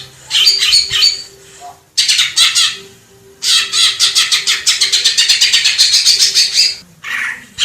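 Green leafbird (cucak ijo) singing in loud, rapid chattering phrases of quick high notes, with a long fast run from about three and a half seconds to nearly seven, between short bursts.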